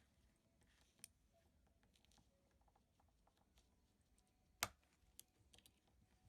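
Faint small clicks and taps of a wristwatch and small tools being handled, with one sharp click about four and a half seconds in.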